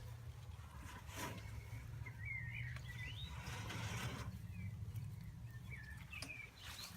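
Faint, short high-pitched chirps, a few a couple of seconds in and again near the end, with occasional rustling over a steady low rumble.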